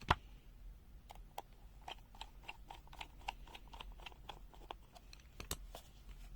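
Small plastic clicks and taps from handling a handheld multimeter and its battery compartment: a sharp click at the start, a run of light ticks, and another sharp click near the end.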